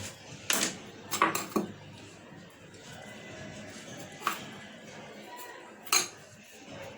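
About six sharp clinks and knocks of kitchenware against a glass jar, in a quick cluster of four near the start and two single ones later, as salted lemons are pressed and packed into the jar.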